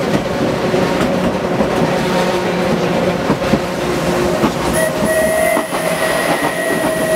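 Electric tram running at a steady speed on its rails: a steady whine from the motors and gearing over running noise, with occasional light clicks from the wheels. About five seconds in, a tram passing on the other track adds a steady higher tone for a couple of seconds.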